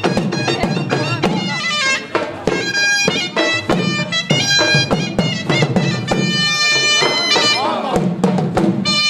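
Surnai, a shrill double-reed pipe, playing a Pashto folk tune over a fast dhol drum beat: the dance music for the Khattak dance.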